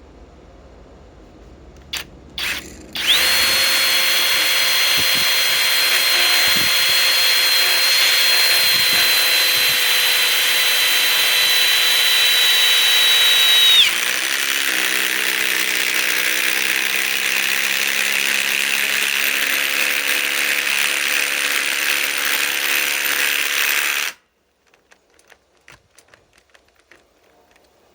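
Flex cordless impact tool on a 2 Ah stacked lithium battery driving a 6-inch lag screw in one long run of about twenty seconds. It starts as a steady high whine, then about halfway through drops to a lower, rougher note as the lag bites harder, and stops abruptly.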